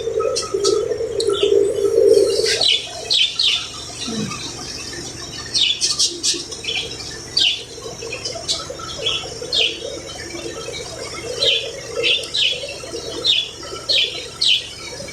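Small birds chirping and squawking in quick, repeated short calls, with a steady hum that is loudest for the first two and a half seconds and then carries on faintly.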